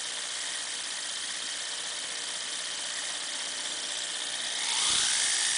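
A small can motor driving an HO brass 0-8-0 locomotive's drive line and gearbox, whirring steadily at low speed. About four and a half seconds in it gets louder, with a rising whine as it speeds up toward full 6-volt running.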